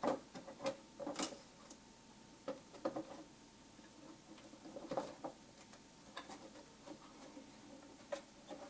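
Wires and small plastic parts being handled, making irregular light clicks, taps and rustles.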